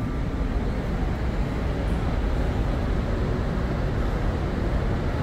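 Steady background noise of a large exhibition hall: an even low rumble with a faint wash of distant, indistinct crowd noise.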